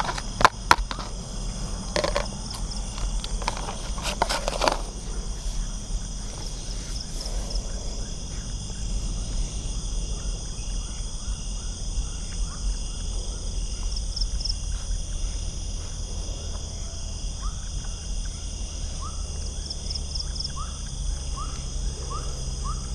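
Night chorus of crickets and other insects, several steady high trills that do not let up. A few clicks and rustles of handling come in the first five seconds, and some short rising chirps come near the end.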